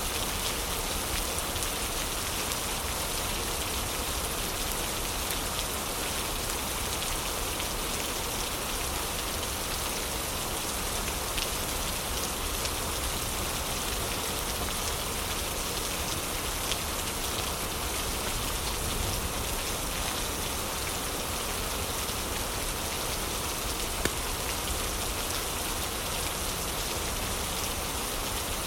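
Heavy rain falling steadily, a dense even hiss of drops with a few sharp ticks, one louder about three quarters of the way through.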